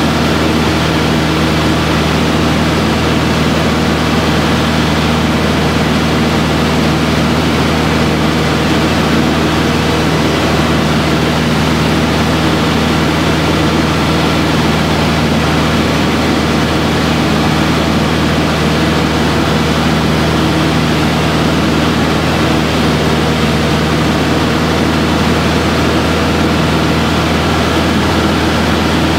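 Aero Boero AB-115 single-engine propeller plane heard from inside the cabin in flight: the piston engine and propeller run at a steady, loud drone with an even hum of airflow, with no change in power.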